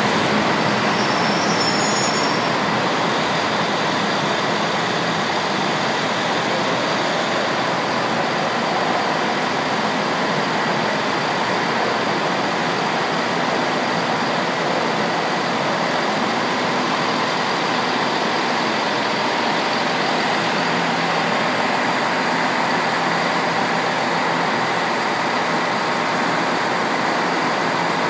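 Limited express train pulling out of the station and running off along the track, heard as a steady rumble and hum with faint steady tones, with no sudden sounds.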